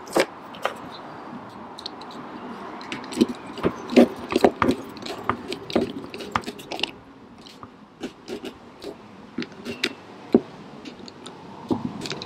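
Irregular clicks, taps and scrapes of small hard parts being handled while the rear wiper motor's gearbox cover is refitted and its screws put back.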